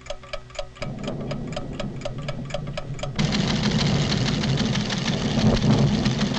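Seismograph clockwork ticking steadily, about four ticks a second. About a second in a low rumble rises beneath it, and at about three seconds a loud rumbling swells and drowns the ticks: the sound of a volcanic tremor registering on the instrument.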